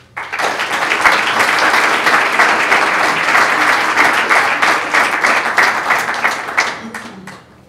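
An audience clapping, starting right away, holding steady for about six seconds, then dying away near the end.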